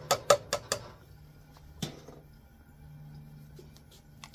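Kitchen clatter from cans of beans being handled at a cooking pot: a quick run of sharp clicks and knocks in the first second, then a single knock about two seconds in. A faint steady low hum lies under it.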